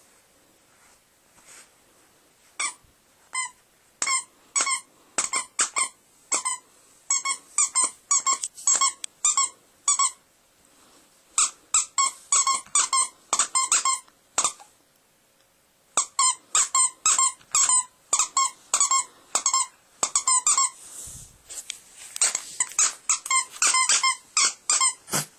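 A dog's squeaky toy squeaked over and over as the dog bites down on it. The squeaks come in quick runs of several a second, with two short pauses partway through.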